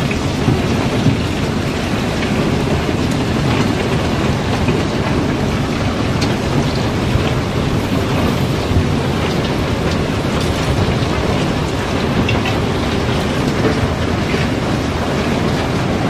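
Iron ore and river rock sliding and pouring down through an opening in a barge hold: a steady, dense rattling pour, heaviest in the low range, with scattered sharper clicks of single stones.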